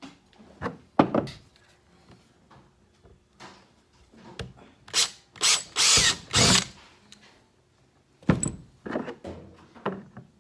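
Power drill with a 3/16-inch bit, run in short bursts to drill pilot holes through the marked points of a plastic rod-holder mount into the kayak hull, with a few knocks from handling in between.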